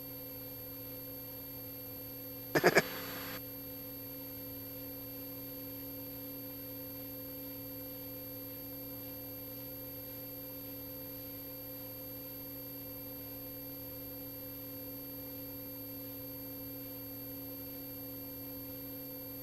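A steady electrical hum made of several fixed tones, with a brief loud crackle about two and a half seconds in.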